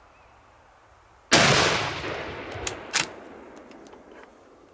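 A single shot from a Los 145 bolt-action rifle in .308 Winchester about a second in, its report ringing out and dying away over the next two seconds. Then come a couple of sharp metallic clicks as the bolt is worked.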